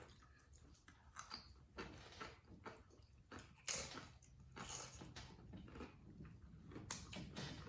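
Crunching and chewing of corn tostada chips scooped with cheese dip: a run of irregular, crisp crunches.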